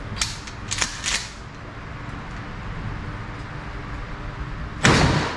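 A few sharp clicks in the first second, then a single shotgun shot near the end, by far the loudest sound, dying away over about half a second.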